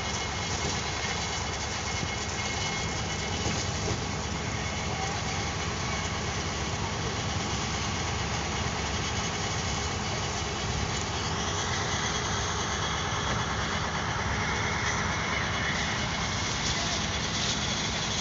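Engine idling steadily: a continuous low hum with a haze of noise over it.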